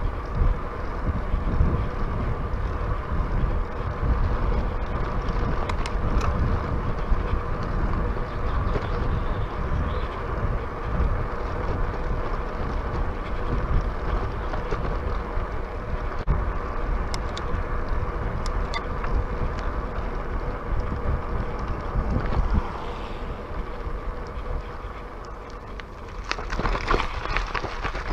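Wind buffeting the microphone over the rolling noise of bicycle tyres on a tarmac lane. About 26 seconds in, a dense crackling sets in as the tyres roll onto loose gravel.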